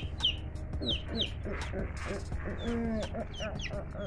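Chicks peeping: a steady string of short, falling high-pitched peeps, several a second, with lower clucking calls mixed in.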